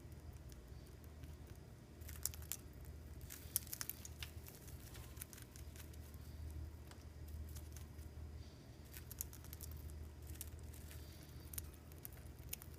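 Budgies pecking at a millet spray: irregular sharp clicks and crackles of beaks cracking seed husks, coming in clusters, over a steady low hum.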